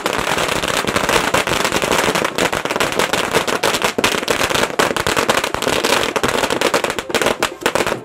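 A long string of firecrackers going off, a rapid, continuous crackle of sharp pops.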